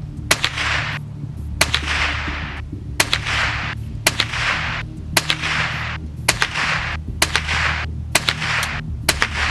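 .22 rifle firing .22 Long Rifle rounds in a steady string, about nine sharp shots roughly one a second, each with a short fading echo, over background music.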